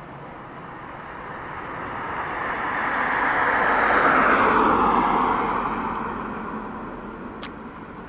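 A vehicle passing by: a broad rush of noise that swells over a few seconds, peaks about halfway, drops in pitch as it goes and fades away.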